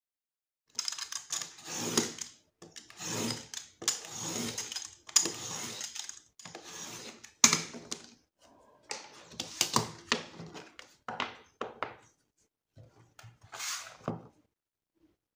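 Blade drawn repeatedly through thick grey cardboard: a run of scraping strokes with short pauses between them, then two more near the end.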